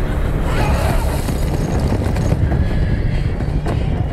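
Steady low rumble of horses galloping, many hoofbeats running together.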